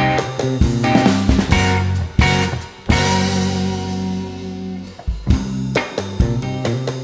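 Live rock band playing an instrumental passage: guitar, bass and drum kit. About three seconds in the drums drop out and a chord rings for about two seconds, then the beat picks back up.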